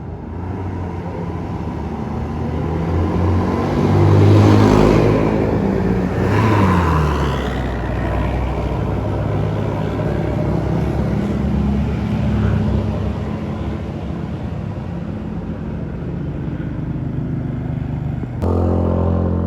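Buses and other traffic climbing a hill, engines running under load; vehicles pass close about four and seven seconds in, their engine pitch falling as each goes by. Near the end a louder, steady sound cuts in suddenly.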